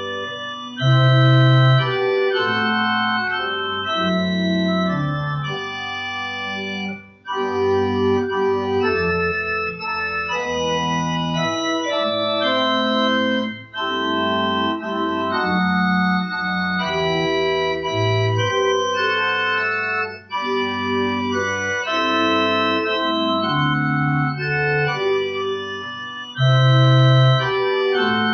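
Pipe organ playing a hymn tune in sustained chords, swelling to louder full chords about a second in and again near the end.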